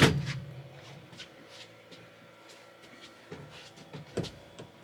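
A single hard knock with a short low boom at the start, then light shuffling and a few small taps of hands-on handling work.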